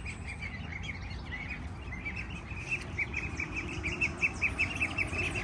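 A flock of young ducklings peeping: a rapid run of short, high peeps, about five or six a second, growing denser in the second half.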